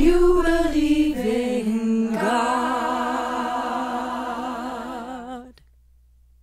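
Singing: the closing note of a song held with vibrato, stepping down in pitch twice, slowly getting quieter and stopping about five and a half seconds in.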